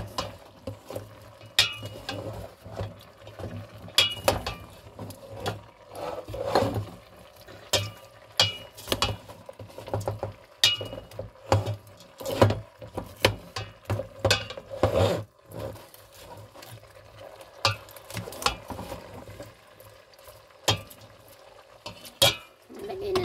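A spoon stirring bitter gourd and beef in a stainless steel pot, with irregular knocks and scrapes against the pot's side and rim.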